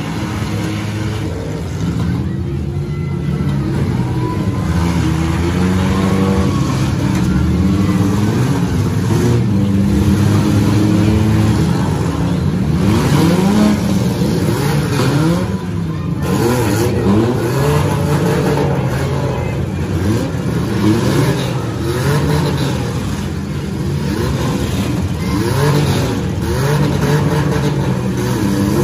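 Several demolition derby cars' engines revving hard at once, their pitches rising and falling as they accelerate, back up and ram each other, with now and then a brief bang from the cars hitting.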